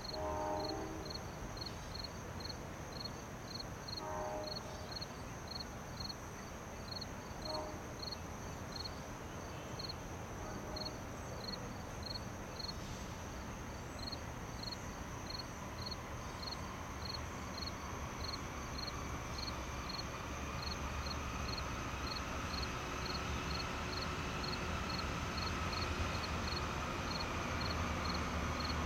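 Insects chirp steadily, about two chirps a second. Under them an approaching freight train led by CSX GE C40-8W diesel locomotives grows slowly louder, a low rumble with a faint whine that builds from about halfway through.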